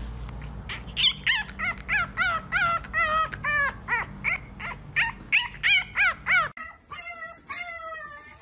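French bulldog puppy howling in a rapid series of short, high yips, about three a second, each rising and falling in pitch. Near the end a second puppy takes over with longer, wavering howls.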